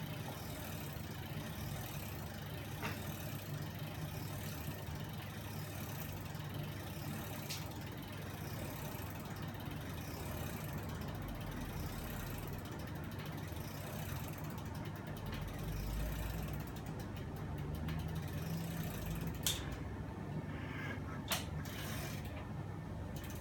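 Homemade magnet-driven flapping-wing machine running on its electric motors, a steady mechanical whir with the clicking of its bicycle ratchet. Two sharp knocks near the end.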